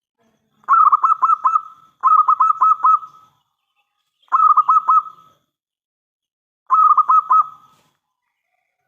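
Zebra dove singing loudly: four separate phrases of quick, staccato cooing notes, four or five notes to each phrase, each phrase about a second long with short pauses between.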